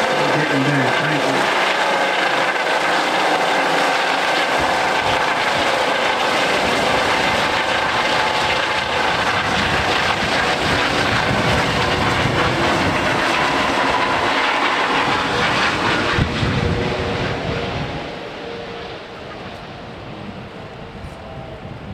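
Medical helicopter lifting off and flying away: steady rotor and turbine noise that fades about three-quarters of the way through as it departs.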